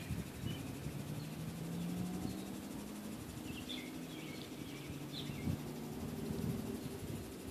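Outdoor evening ambience: a low, steady drone of distant machinery or traffic, with a few short bird chirps about halfway through.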